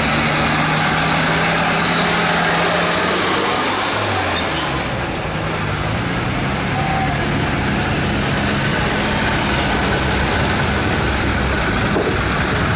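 Tractor engines running at a steady idle, with the engine pitch dropping and changing about four seconds in.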